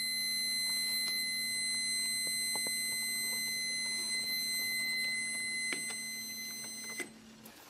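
Testo 317-3 carbon monoxide meter's audible alarm sounding a steady high-pitched tone, set off by CO calibration gas sealed in a bag with it at about 150 ppm. The tone cuts off suddenly near the end.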